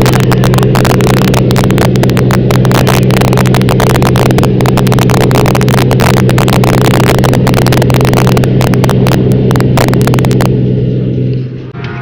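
Loud, steady drone of a light single-engine aircraft's piston engine and propeller, heard inside the cabin in flight, with dense crackling of wind on the microphone. It fades out near the end.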